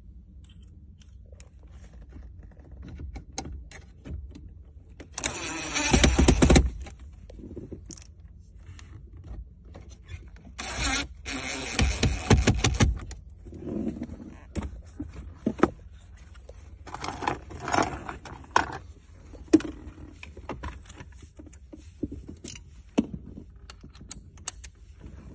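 DeWalt 18V XR brushless cordless driver running in short bursts as it drives trim screws back in. The two loudest bursts come about five and eleven seconds in, each lasting one to two seconds, with smaller clicks and rattles of parts being handled in between.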